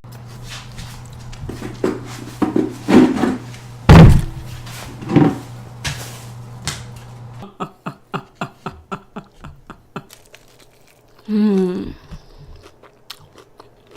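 A heavy thump about four seconds in, over a low steady hum that stops about halfway. After that comes a quick run of small clicks, with a brief vocal sound among them.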